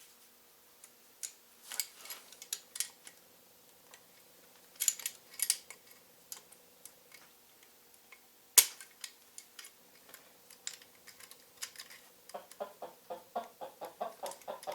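Small metal parts clicking and clinking as they are handled and fitted by hand, with one sharp, louder click about eight and a half seconds in. Near the end, chickens start clucking in quick succession.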